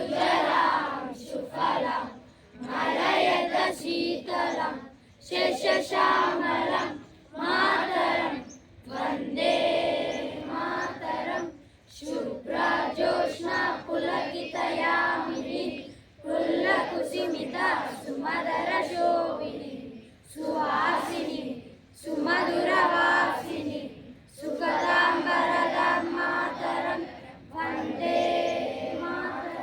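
A group of children's voices singing or chanting in unison, in short phrases with brief pauses between them.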